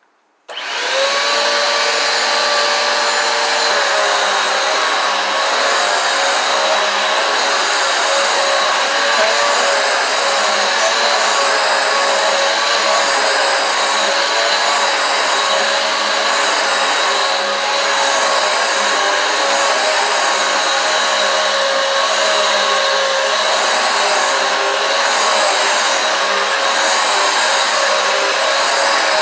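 Eureka AirSpeed One upright vacuum cleaner switched on about half a second in, its motor spinning up quickly and then running steadily with a high whine. Its brushroll is driven by a newly fitted belt, replacing one that had broken.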